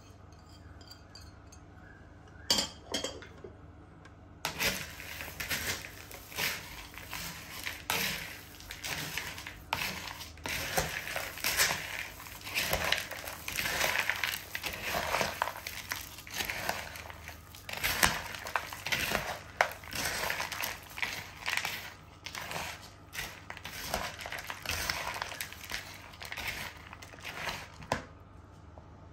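Dense, irregular crunching and crackling of dry chatpate, a puffed-rice and noodle snack, starting about four seconds in and stopping near the end, with a few light clinks.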